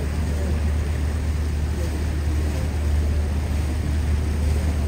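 Seine river tour boat under way, a steady low rumble.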